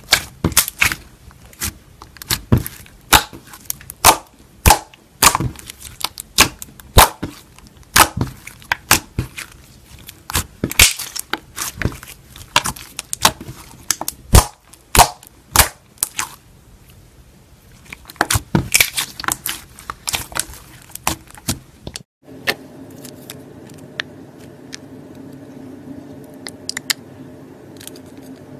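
Slime being pressed and worked by hand, giving sharp pops and clicks about one or two a second. About 22 seconds in the sound changes abruptly to a steady low hum with only a few faint pops.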